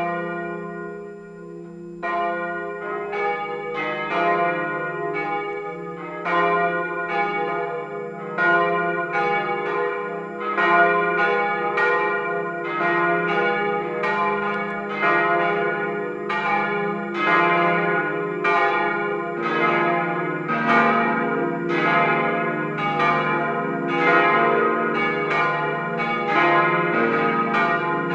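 A peal of five cast-steel church bells tuned B♭, C, E♭, F and A♭, cast by Bochumer Verein in 1954, swinging and ringing together. Each stroke rings on and overlaps the next, and the strokes come thicker as the peal builds, with a change in the low ring about 19 seconds in.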